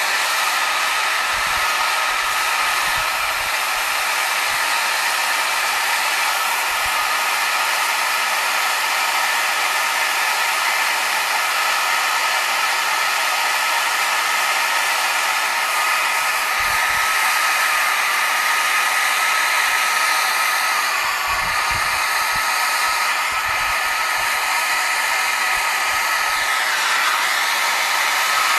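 Handheld gas torch burning with a steady hiss as its flame is played over a red oak bowl to dry off the surface water, with a thin whistle in the flame that shifts in pitch a couple of times.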